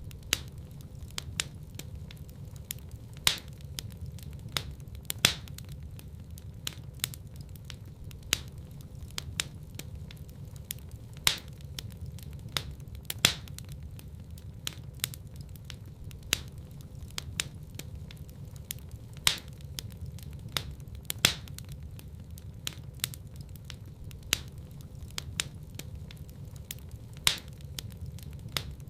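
Wood fire crackling in a fireplace: a steady low rumble of flame with frequent sharp pops and snaps, several of them markedly louder.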